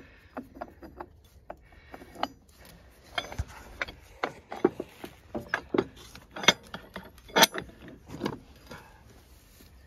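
Irregular sharp metallic clinks and knocks as heavy steel parts of a track pin press are handled and fitted against an excavator track link, with a spacer set over the threaded pull rod. A few louder clanks come in the second half.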